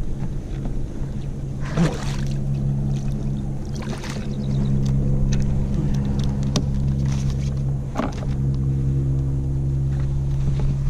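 A steady low engine hum with overtones, louder from about four seconds in, broken by scattered sharp clicks and knocks.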